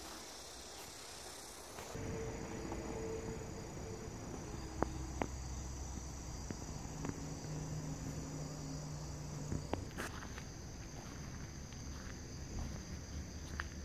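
Insects chirring in a steady, high, even drone, with a few faint clicks over it.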